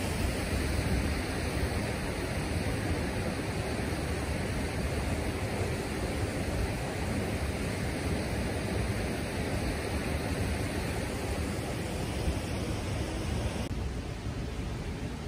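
Steady rush of a fast mountain river flowing over rocks. Near the end it suddenly drops to a quieter, duller rush.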